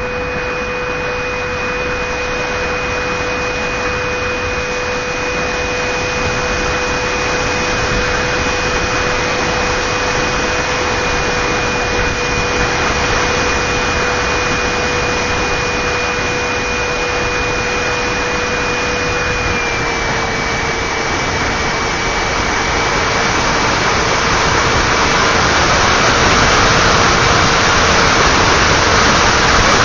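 Electric motor and rushing airflow of a Multiplex Twister RC plane in flight: a steady hiss of wind noise with a constant whine that drops slightly in pitch about twenty seconds in, the hiss growing louder toward the end.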